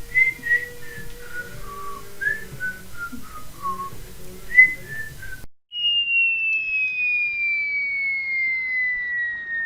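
A short whistled run of stepping-down notes over room noise. Then, after a sudden cut, a single long whistle tone slides smoothly downward for about four seconds: a cartoon-style falling-whistle sound effect used for a gag.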